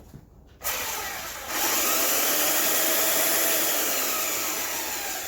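A new Makita 4-inch by 24-inch belt sander switched on for a test run, running normally. Its motor starts suddenly about a second in, spins up to full speed, then begins to slow and fade near the end.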